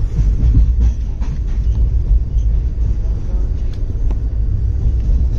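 Steady low rumble of a moving train heard from its carriage window, with a few faint clicks scattered through it.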